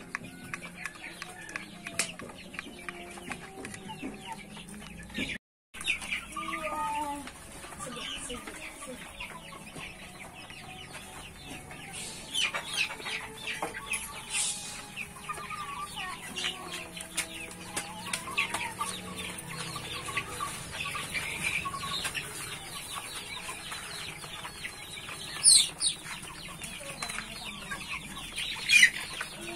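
A flock of Ayam Cemani chickens and young chicks clucking and calling softly while they forage, over many small taps of beaks pecking at feed. Two short, loud, high calls near the end.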